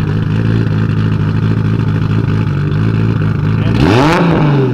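Nissan Skyline R32 GT-R's straight-six idling steadily. About four seconds in it gives one quick rev that rises sharply and falls back to idle.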